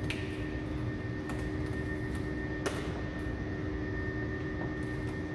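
A steady mechanical hum over a low rumble, with two short crackles of the vinyl wrap film being handled, one at the start and one in the middle.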